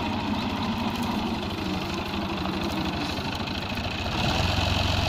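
Fiat 480 tractor's diesel engine running with a fast, even throb. About four seconds in it grows louder and steadier.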